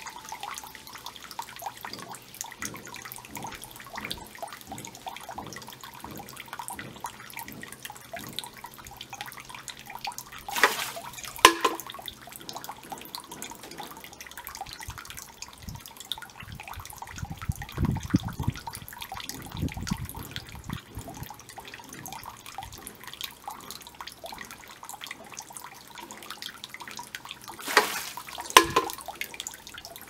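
Water trickling and dripping from a bamboo spout into a small stone garden pond, steady throughout. Two brief louder sounds stand out, one about a third of the way in and one near the end, with a low rumble a little past halfway.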